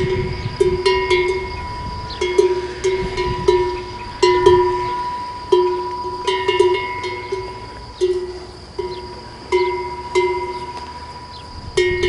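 Cowbell worn by a grazing cow, clanking irregularly about twice a second, each clank ringing on briefly at the same hollow pitch.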